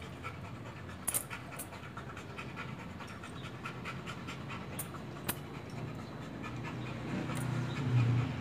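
Oxy-acetylene torch flame hissing steadily while it heats a broken aluminum welding-machine coil and aluminum filler rod for brazing, with a few short sharp clicks; a low hum swells near the end.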